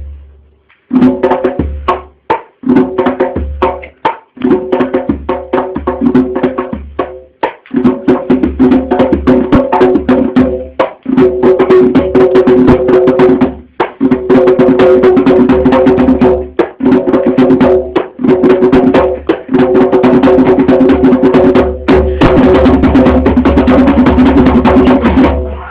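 Loud music: a steady held tone of several pitches under a fast run of clicking percussion, broken by short pauses, playing more continuously in the second half.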